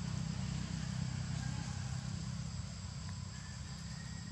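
Steady outdoor background noise: a constant low rumble under a thin, high, steady whine, with a few faint short whistles.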